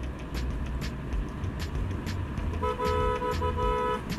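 Vehicle horn honking for a little over a second, broken into a few short beeps, near the end. It sounds over background music with a steady beat and the low rumble of the moving vehicle.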